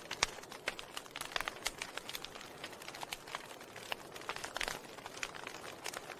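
Fire crackling: irregular sharp pops and snaps, several a second, over a soft steady hiss.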